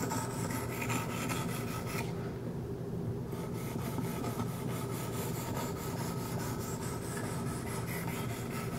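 Wicked Edge 1000-grit stones rubbing along the edge of a Kershaw Skyline's 14C28N steel blade in steady strokes: a quiet, even rasp with a short break about two seconds in.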